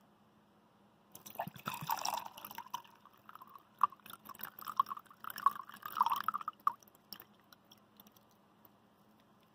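Water poured from a bottle into a metal tumbler onto an ice cube, splashing and filling for about six seconds from about a second in, followed by a few drips as the pour stops.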